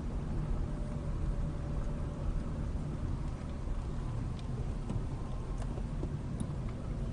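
Inside a car's cabin, the steady low rumble of engine and tyres as the car drives through a parking lot, with a few faint clicks and ticks.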